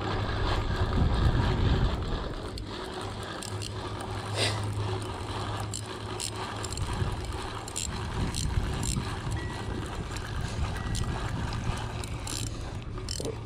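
Spinning reel being cranked to retrieve line, its gears running with scattered short clicks, over a low rumble that is loudest in the first two seconds.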